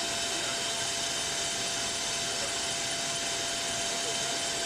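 Tunnel car washing machine running: a steady rushing noise of machinery, air and water, with a thin steady whine and no change in level.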